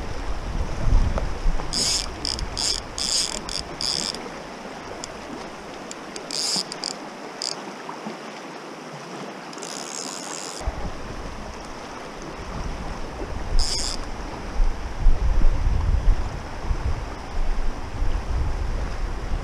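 River current rushing over shallow stones, with gusts of wind buffeting the microphone near the start and again in the last few seconds. Several short runs of high buzzing clicks, the fly reel's ratchet as line is wound in or pulled off while playing a salmon, come between about two and fourteen seconds in.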